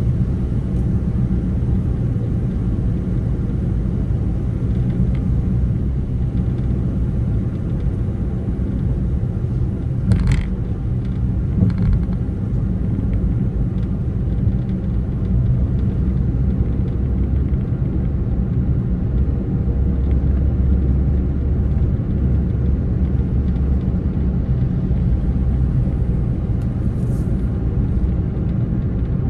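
Steady low rumble of a vehicle driving along a road, engine and tyre noise, with two brief sharp sounds about ten and twelve seconds in.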